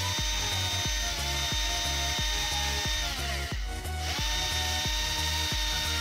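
Cordless drill motor whining as it drills a small hole through a plastic ball-pen barrel. It spins up, holds steady for about three seconds and winds down, then spins up again about four seconds in. Background music with a steady beat plays throughout.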